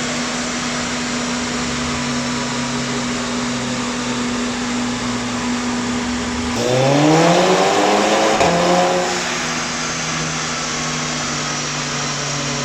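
Tuned VW Golf 6 GTI Edition 35 engine idling under a steady loud rushing noise. It is revved once about six and a half seconds in: the pitch climbs for about two seconds, then it drops back to idle.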